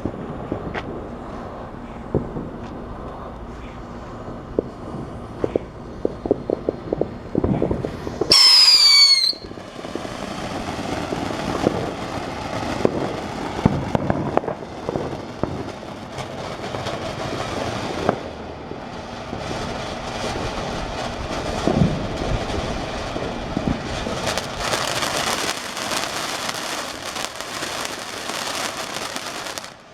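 TNT Countdown fountain firework burning: a steady spraying hiss with crackling pops. About eight seconds in comes a loud shrill whistle lasting about a second, the loudest sound here; the spray grows brighter near the end and cuts off suddenly.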